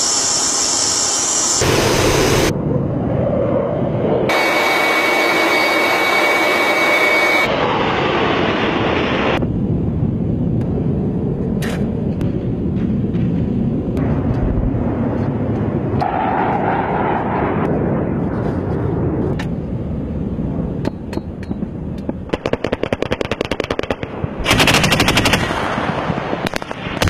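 A string of military sounds: at first a steady rush of jet aircraft noise, then scattered shots. The last several seconds hold bursts of rapid automatic gunfire.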